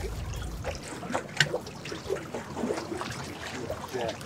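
Water splashing and lapping against shoreline rocks, with a hooked jack splashing at the surface as it is landed. Wind rumbles on the microphone for the first second.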